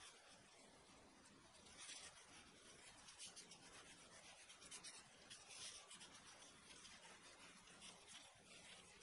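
Faint rubbing of disposable gloves as hands roll a ball of snow skin mooncake dough between the palms, in several short strokes.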